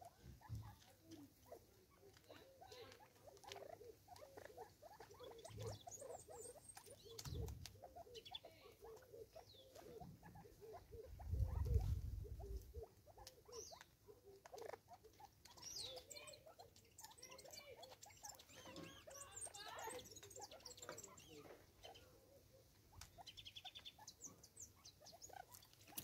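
Natal spurfowl pecking at food on a stone slab: a faint, irregular patter of beak taps, with short soft calls among them. A brief low rumble about halfway through is the loudest moment.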